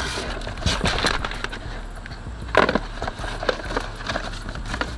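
Cardboard boxes being handled and set down: scattered knocks and scrapes, with one sharper knock about two and a half seconds in.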